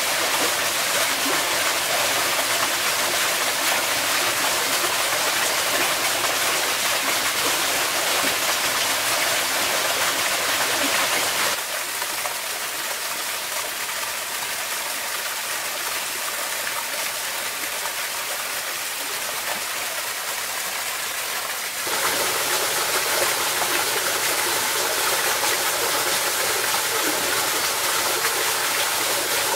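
Shallow stream running over pebbles and stones, a steady rushing and babbling. It drops a little quieter for about ten seconds in the middle, then returns to its earlier level.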